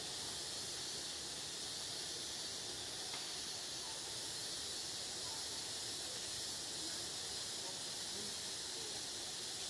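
A steady high hiss of background noise, even throughout, with a few faint short sounds underneath.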